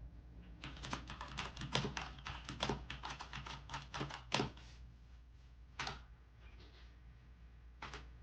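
Typing on the RK Royal Kludge S108 mechanical keyboard with clicky blue switches: a quick run of keystrokes for about four seconds, then two single key presses.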